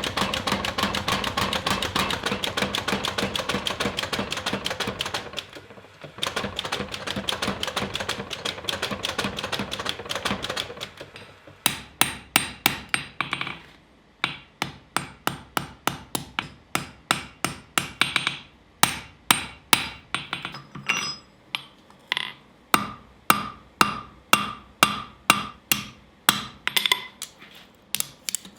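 Steel being forged with a hammer on an anvil. For the first ten seconds or so it is fast, continuous hammering. After that come separate blows, about two to three a second, many of them ringing briefly.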